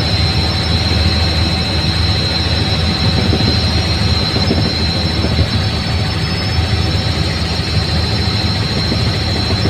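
Helicopter in flight heard from inside the cabin: a loud, steady drone of rotor and engine with a steady high whine over it.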